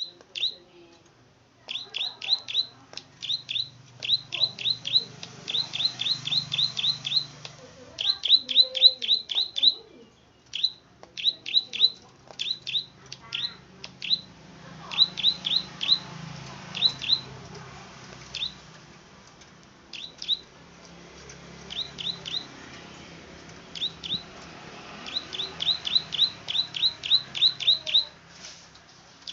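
Prenjak padi (plain prinia) calling: quick runs of sharp, clicking 'klik' notes, each falling in pitch, several a second, broken by short pauses.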